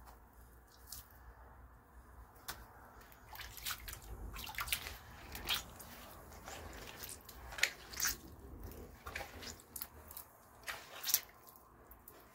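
Hands squeezing and breaking up sticky wet clay in a plastic gold pan under water: soft irregular squelches with small splashes and drips, and a couple of sharper splashes.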